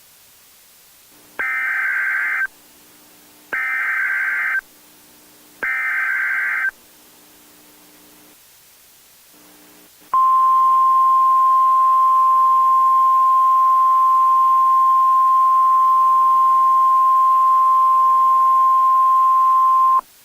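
Emergency Alert System SAME header: three bursts of digital data screech, each about a second long, then a single steady attention tone held for about ten seconds before it cuts off, the signal that comes before a National Weather Service warning.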